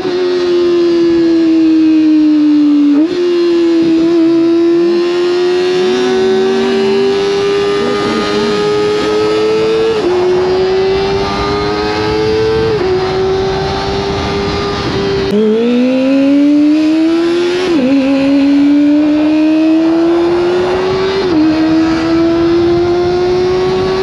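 Kawasaki ZX-25R's inline-four engine through an Akrapovic exhaust, running at high revs under way. Its pitch climbs slowly under throttle and drops sharply four times as it shifts up with the quick shifter. About three seconds in the pitch jumps up, and near the middle it dips briefly, then climbs fast again, with wind rush on the microphone.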